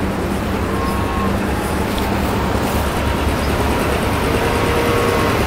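Steady low machine hum with a deep rumble underneath, unchanging in level.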